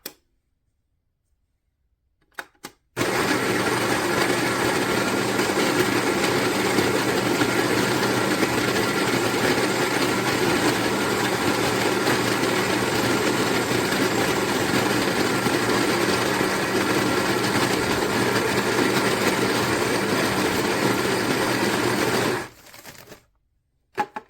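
Greater Goods electric coffee grinder starting about three seconds in and grinding beans for a two-cup dose, a steady motor whine, then winding down and stopping near the end.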